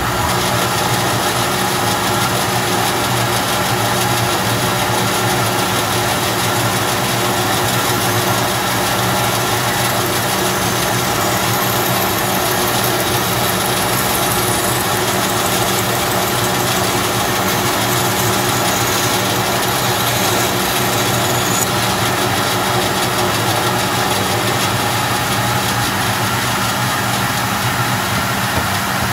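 Delta bandsaw's motor running steadily with a low hum while a wooden hatchet handle is fed through the blade.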